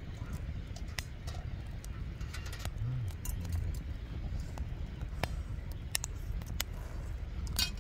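Wind buffeting the microphone as a steady low rumble, with scattered light clicks and knocks throughout.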